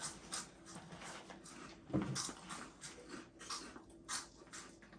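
Faint, irregular crunching and chewing of cheese balls, mouths full, with a brief low muffled sound about two seconds in.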